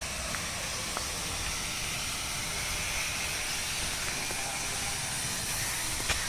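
Steady hissing background noise with a few faint clicks.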